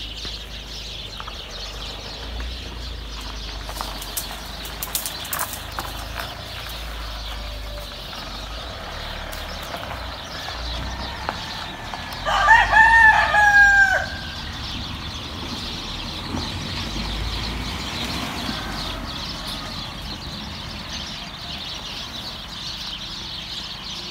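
A rooster crows once, a single call of about two seconds around the middle, over the steady patter of rain.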